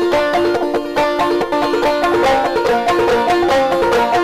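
Background music: fast plucked-string picking in a bluegrass style, led by banjo, with a quick, steady run of notes.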